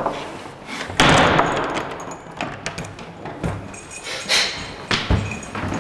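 A door slamming about a second in, with a short echoing decay, followed by two lighter knocks later on.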